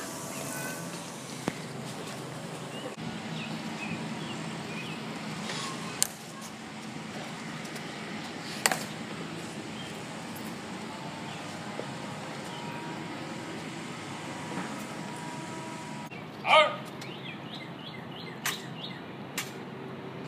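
Outdoor ambience of a hushed crowd with bird chirps, broken by a few sharp clicks from the ceremonial guards' heel clicks and rifle handling during the changing of the guard. A brief, louder pitched call stands out about three-quarters of the way through.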